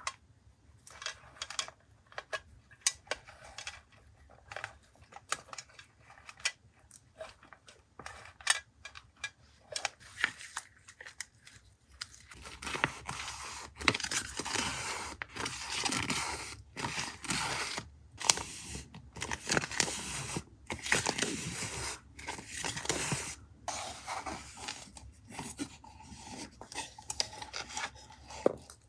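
Paper and packaging handled at close range: scattered light taps and clicks at first, then about twelve seconds in, continuous rustling, crinkling and tearing in long stretches with short pauses.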